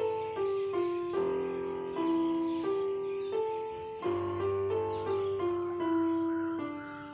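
Background piano music: a slow, gentle melody of single struck notes that ring and fade, over a held low note in the second half.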